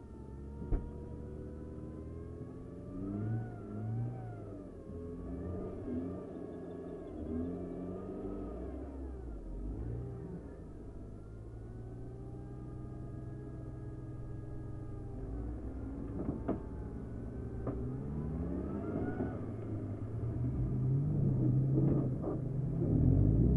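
Engines running and revving, their pitch rising and falling again and again, growing louder toward the end as a tractor and a race car come right up close. A few sharp knocks come in the second half.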